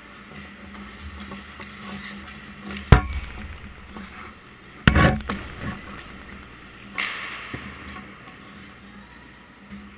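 Ice hockey pucks and sticks striking during a practice: a sharp crack about three seconds in, a heavier knock followed by a few smaller knocks about halfway, and a scraping hiss around seven seconds, over a steady low hum.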